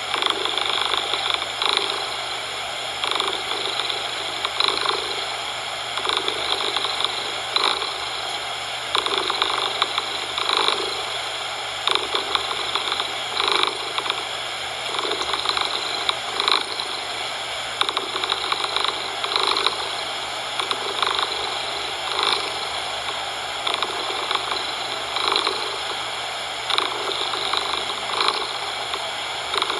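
A cat purring in cycles that pulse about every second and a half, over a steady bed of coloured noise hiss.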